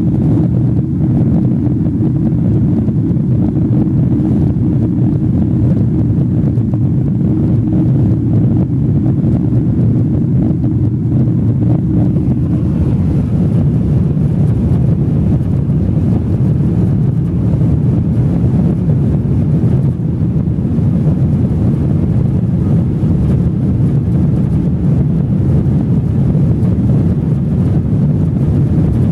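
Steady low roar inside the economy cabin of a Boeing 777-300 in flight: jet engine and airflow noise heard at a window seat beside the wing.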